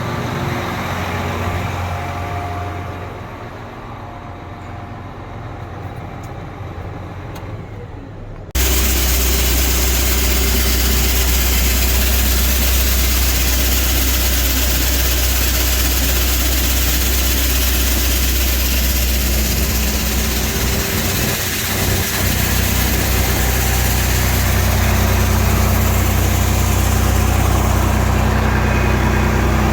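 Tractor engine idling steadily. About eight seconds in, it switches abruptly to much louder, steady farm machinery running with a deep hum.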